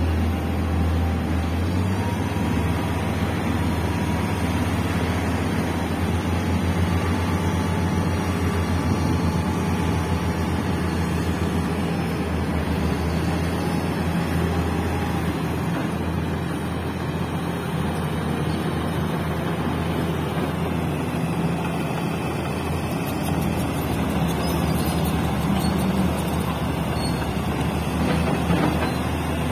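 Shantui 90-ton mining dump truck's diesel engine running steadily under load while its hydraulic hoist raises the dump bed to tip a load of rock.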